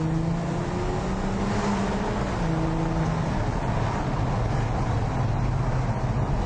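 Passat 2.5 V6 TDI diesel with a straight-through exhaust and the catalytic converter cut out, heard from inside the cabin while accelerating. Its engine note rises for about three seconds, then eases into a steady drone with road noise.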